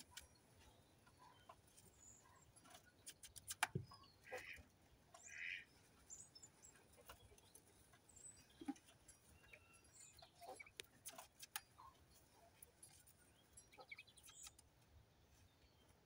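Coturnix quail dust-bathing in a dish of sand, faint over near silence: scattered soft clicks and short scratchy rustles, the busiest stretch a few seconds in, with a few quiet chirps.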